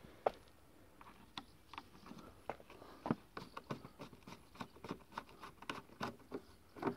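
Light, irregular clicking and ticking, a few clicks a second, as a screwdriver bit turns a headlamp mounting bolt on an Audi A2.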